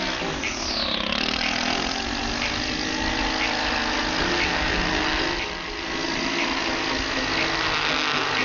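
Gas string trimmer's small engine running, its speed rising and falling as it edges along a driveway.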